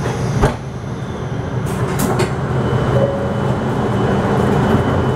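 An E7 Shinkansen's sliding passenger door opening at a station: a sharp click about half a second in, a few short sharp sounds around two seconds, then the platform's noise growing louder as the door opens, with a thin steady high tone.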